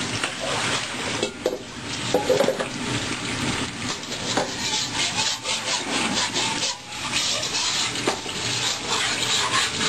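A dark pan being scrubbed by hand in the kitchen sink: a run of quick, irregular scrubbing strokes.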